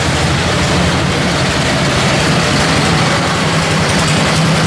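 Allis-Chalmers garden tractor engines running steadily and loud, a close, low, fast-pulsing engine drone.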